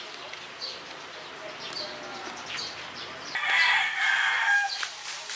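A rooster crowing once, about a second and a half long, starting a little past halfway. Small birds chirp now and then around it.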